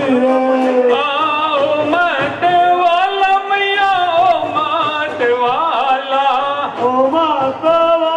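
Devotional garba song to Mahakali: a voice singing a melody with long, bending held notes over musical accompaniment, loud and unbroken.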